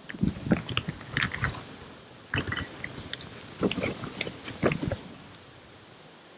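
Close handling noises: rustling with clicks and knocks, in three short bunches over the first five seconds, then they stop.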